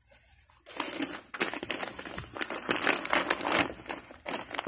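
Plastic packaging crinkling and rustling as items are handled and pulled out, starting about a second in and going on in quick irregular bursts.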